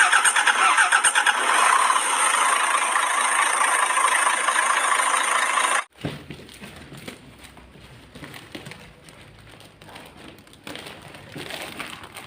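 Engine start-up and running sound, thin-sounding and pulsing at first, then steady, cutting off suddenly about six seconds in. After it comes quiet room noise with a few faint knocks.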